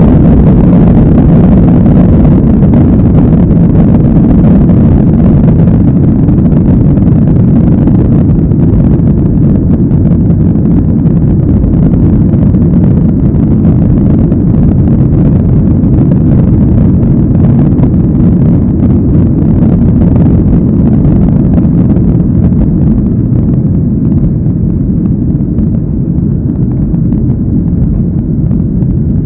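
Boeing 737-800's CFM56-7B turbofan engines at takeoff thrust, heard from inside the cabin: a loud, steady rumble through the end of the takeoff roll, liftoff and initial climb, easing slightly near the end.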